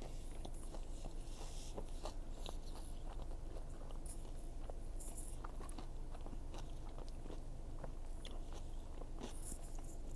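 A man chewing a mouthful of burger close to the microphone: irregular wet mouth clicks and smacks, over a steady low hum.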